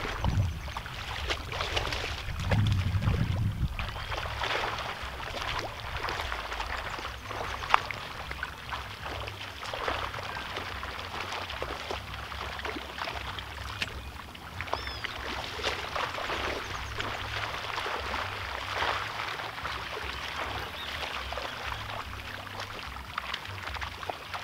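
Shallow pond water splashing and sloshing as a seine net is hauled by hand and men wade through it: a continuous patter of small splashes and drips, with a heavier slosh about three seconds in.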